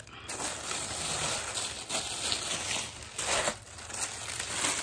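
Tissue paper rustling and crinkling as hands fold it back inside a shoe box, with a few brief louder swells.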